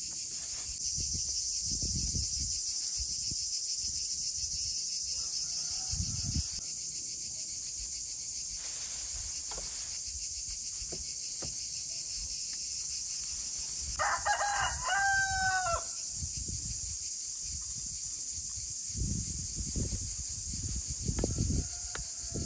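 A rooster crows once, a call of about two seconds about two-thirds of the way through, over a steady chorus of crickets. A few low thumps come early and near the end.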